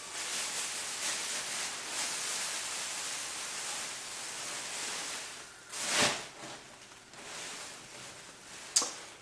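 Wrapping rustling steadily as a fedora hat is unwrapped by hand, with a loud brief swish about six seconds in and a sharp snap near the end.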